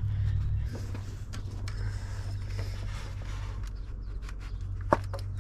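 Scattered small plastic clicks and snaps as the ignition coils and their connectors on a BMW N54 twin-turbo straight-six are pulled loose by hand, with one sharper click near the end. A steady low hum runs underneath.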